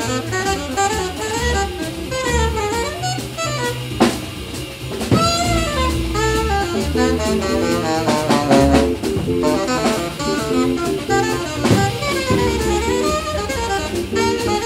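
Live small-group jazz: an alto saxophone plays a busy solo line in quick runs over upright bass and drum kit. Sharp drum accents come about four and five seconds in, and again near twelve seconds.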